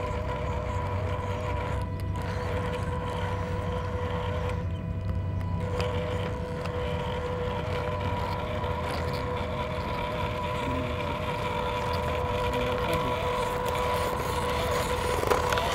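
Small electric motor and gears of a 1/12-scale RC rock crawler running steadily, with a constant high whine over a low rumble; a brief knock near the end.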